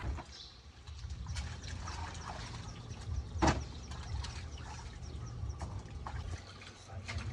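Water splashing and sloshing in metal basins as a cow's head and vegetables are washed by hand: scattered small splashes, with one sharper splash about three and a half seconds in.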